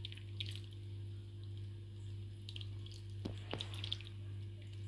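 Thickened milk pouring from a pan onto bread slices in a glass dish, a faint liquid pour and drip, over a steady low hum. Two light clicks a little over three seconds in.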